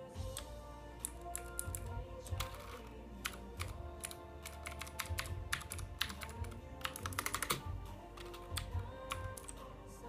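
Typing on a Ducky One mechanical keyboard with clicky blue switches: irregular key clicks, with a quick run of keystrokes about seven seconds in, over background music.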